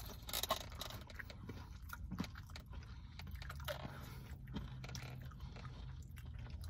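Two people chewing crunchy fried mini taco shells: a run of small, irregular crisp crunches over a low steady hum.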